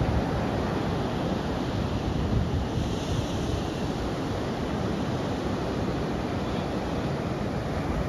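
Ocean surf breaking steadily on a sandy beach, with wind rumbling on the microphone.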